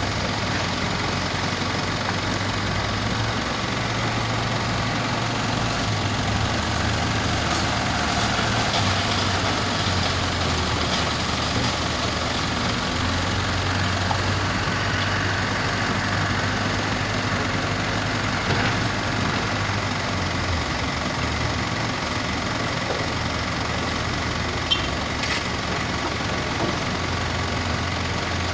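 Heavy diesel engines of a tracked excavator and a wheel loader working a sand pile, running steadily, the engine note shifting up and down with the load. A brief sharp knock about 25 seconds in.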